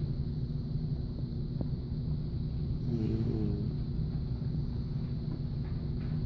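A sleeping puppy snoring once, about three seconds in: a short, wavering snore over a steady low rumble.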